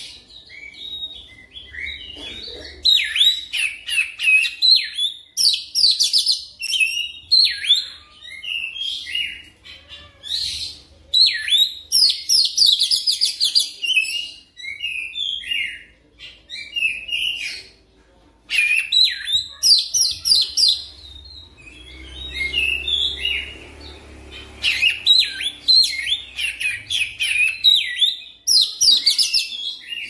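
Oriental magpie-robin (kacer) singing a fast, varied song of high whistles, trills and chattering notes, delivered in dense runs broken by short pauses.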